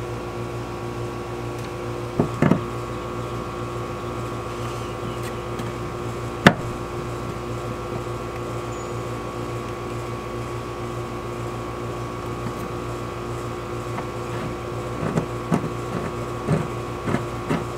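Steady machine hum in the background, with a few metallic clicks from a hand rivnut tool setting a threaded insert into the jon boat's aluminum rib. There is one sharp click about six and a half seconds in, and several small clicks near the end as the tool's mandrel is turned back out of the insert.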